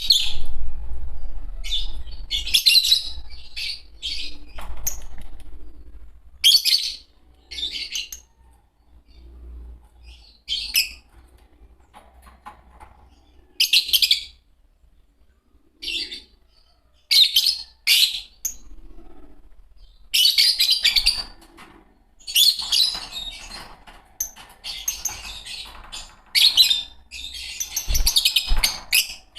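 A pair of Fischer's lovebirds chirping in short, sharp, high-pitched bursts with pauses between them, the calls coming thick and almost without a break over the last several seconds.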